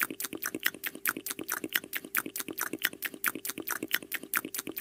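Cartoon eating sound effect: a rapid, even run of short clicking munches, about nine a second, as a character chews a mouthful of pancake, over a faint steady hum.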